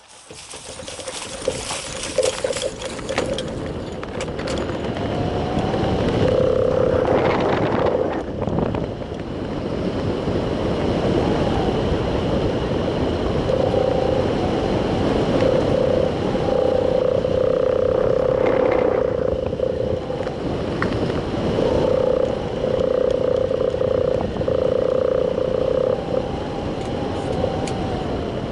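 Wind rushing over the microphone of a camera mounted on a hang glider, building over the first few seconds as the glider launches and gathers speed. A buzzing hum comes and goes throughout.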